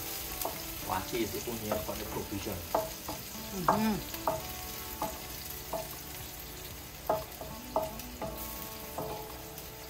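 Onions sizzling in oil in a large metal pot while a spatula stirs them, scraping and knocking against the pot so that it rings briefly, every half-second to a second or so; the strongest stroke comes about four seconds in.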